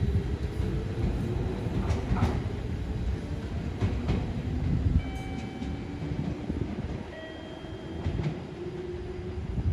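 A JR Central 211 series and 313 series electric multiple-unit train pulls away from the station and accelerates. It makes a steady low rumble, with a motor whine slowly rising in pitch and a few sharp clacks as the wheels cross rail joints and points.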